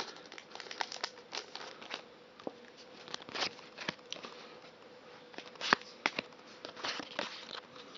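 Handling a Japanese Pokémon TCG booster pack and its cards: the foil wrapper crinkles and the cards rustle and click in a string of light, irregular sounds, the sharpest snap a little before six seconds in. A faint steady hum sits underneath.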